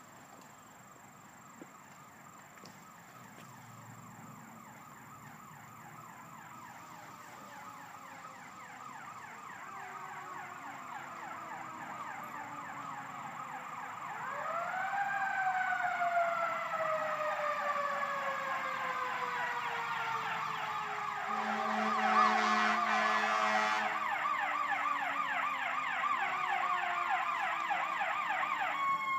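Emergency vehicle sirens approach and grow steadily louder. A fast warbling yelp is overlaid about halfway through by a slow wail that winds up quickly and then falls gradually. A steady horn blast of about two seconds sounds about three quarters of the way in.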